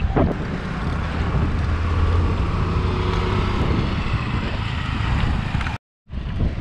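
Wind rushing over a handheld action camera's microphone while riding a bicycle on a highway, mixed with the rumble of road traffic. The sound drops out completely for a moment near the end.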